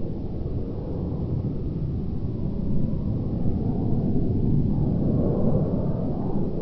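Rumble of an RC model jet's BF300 turbine engine in flight, growing louder over the first few seconds as the jet comes closer.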